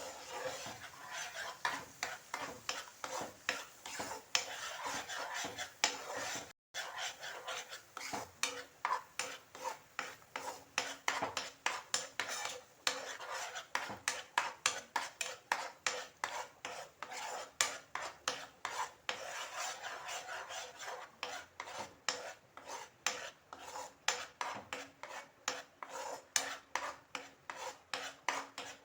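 A utensil stirring and scraping thick ground-date paste around a pan in ghee, in quick regular strokes of about two to three a second, as date halwa is cooked down.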